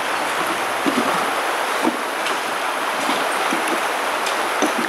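Shallow stream running over rocks: a steady, even rushing of water, with a few faint short knocks.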